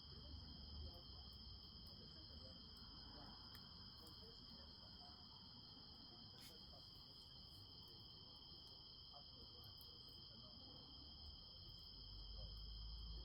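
Faint, steady high-pitched chorus of crickets, with scattered soft pops from a campfire crackling, one a little louder about six and a half seconds in.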